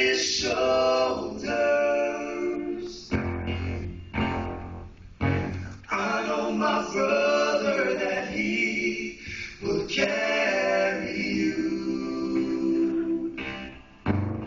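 A group of voices singing a song together, with several long held notes.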